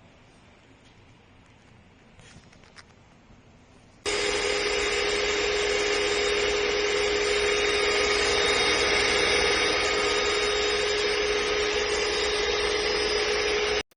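Electric stand mixer motor (Cornell CSM-8007HP, 250 W) switched on about four seconds in, running steadily with a constant whine for about ten seconds, then cutting off abruptly. A few faint clicks come before it starts.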